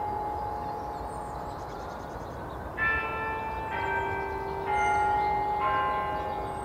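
Church bells ringing. Several bells of different pitch are struck one after another, about once a second from a little before halfway in, and each note rings on as it fades.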